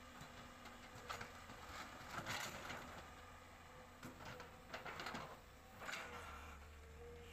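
Komatsu PC200-7 excavator's six-cylinder diesel engine running as a faint low hum, with several short rattles of soil and rock spilling from its bucket into a dump truck.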